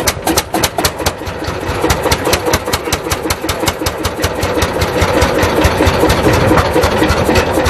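Engine of a vintage steel-wheeled tractor running with a sharp, even exhaust beat of about five or six pops a second, which blurs into a denser, slightly louder run after about a second.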